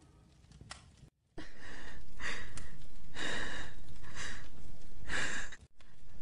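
A young woman breathing heavily, about one breath a second, over a steady low background. It starts after a second and a half of near silence.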